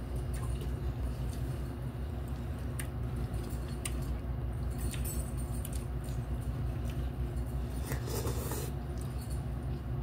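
Two people eating cup noodles: a few light clicks of plastic utensils against the paper cups in the first few seconds and a brief slurp of noodles about eight seconds in, over a steady low hum.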